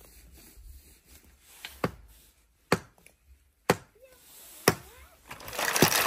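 Sharp clicks, about one a second, then a rustling noise near the end, with faint voice-like sounds in between.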